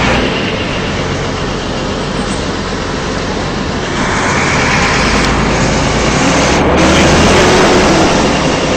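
Noise inside a stopped city bus: the engine idling under a steady rumble of traffic, rough and loud. It gets somewhat louder about four seconds in.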